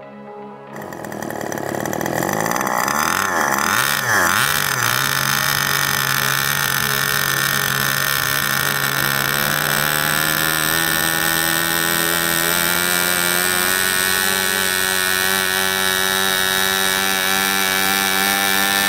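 Model-plane .46 glow engine running just after starting, its glow-plug igniter still attached: the engine speed wavers up and down for a few seconds, then settles into a steady run.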